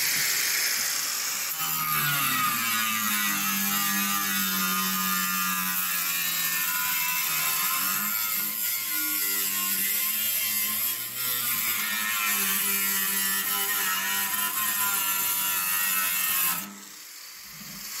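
Angle grinder cutting into the steel top of a safe: a steady, loud grinding whose motor pitch sags about two seconds in as the disc bites. It stops briefly about a second before the end, then starts again.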